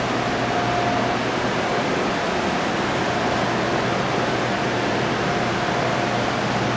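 A steady, loud rushing hiss with no distinct events, with a faint high hum running under it.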